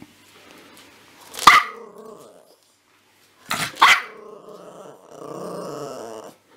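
Small black puppy barking: one sharp bark about one and a half seconds in and two more in quick succession just before four seconds, the last the loudest, then a drawn-out growl lasting about two seconds.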